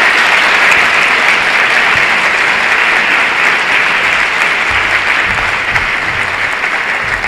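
A large audience applauding steadily, many hands clapping together, the applause easing off slowly toward the end.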